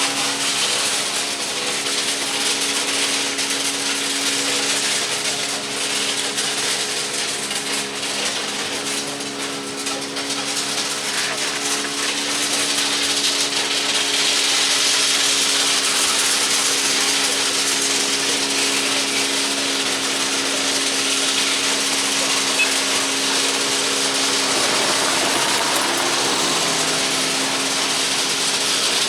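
Engine running steadily with a constant hum and a broad hiss over it, typical of track maintenance machinery working in a railyard.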